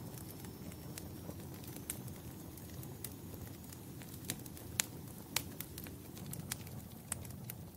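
Wood fire crackling: a steady low rumble of burning with irregular sharp pops and snaps, a couple of louder pops a little past the middle.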